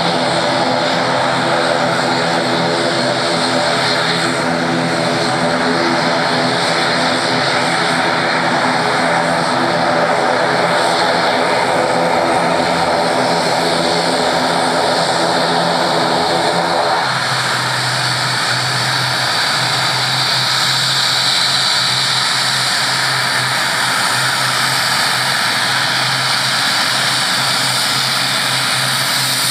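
ATR 72-600 turboprop's Pratt & Whitney PW127 engines and propellers running as the aircraft taxis close by: a steady propeller drone with several tones stacked over it. About halfway through the sound changes abruptly to a lower hum with a high hiss.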